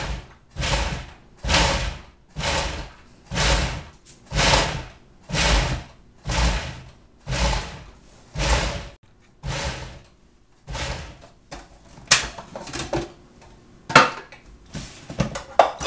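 Food processor with an S blade pulsed about a dozen times, each burst about half a second and about one a second, chopping raw cauliflower florets into rice-sized bits. The pulses stop after about eleven seconds, followed by a few sharp clicks and knocks.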